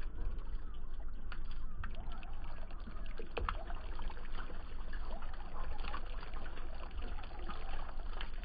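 Muddy water trickling and dripping off the Mahindra Thar's mud-caked bodywork, with scattered sharp drip ticks over a low steady rumble.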